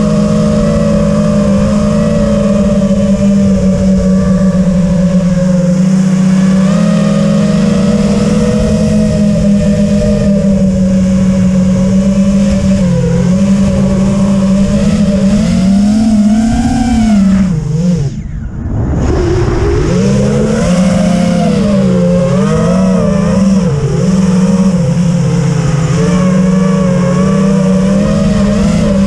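FPV racing quadcopter's brushless motors and propellers whining, heard from the onboard camera. The pitch holds steady at first, then rises and falls with the throttle from about halfway. Around two-thirds through it swoops down and briefly drops away before picking back up.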